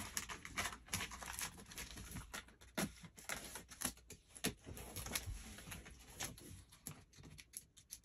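Thick packing tape on a cardboard shipping box being picked at and peeled along its edge to break the seal: a run of irregular short scratches, clicks and small tearing sounds.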